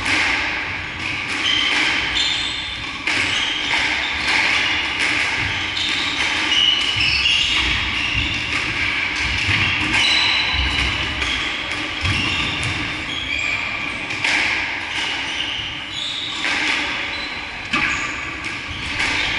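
A squash rally: the hard ball smacked by rackets and striking the walls and floor again and again, with rubber-soled shoes squeaking on the wooden court floor.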